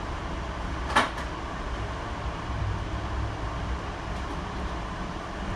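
Steady low rumble inside an Amtrak Horizon passenger rail car, with one sharp knock about a second in.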